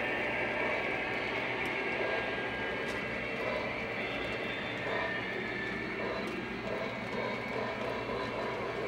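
Lionel O-gauge model train running on the track: a steady motor hum and wheel rumble, with a few light clicks.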